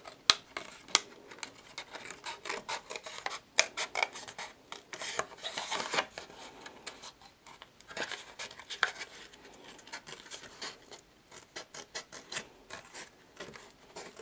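Small curved nail scissors snipping through thin card in a quick, irregular run of crisp snips, with the card rustling against the blades and fingers as it is turned.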